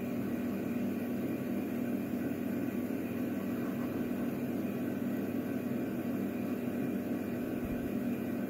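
Steady low mechanical hum with a hiss, unbroken and unchanging.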